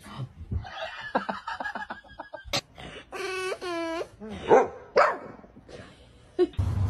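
A husky and a French bulldog vocalizing: a run of short yips and whines, then two long wavering whines about three seconds in, and a couple of loud short calls about a second later.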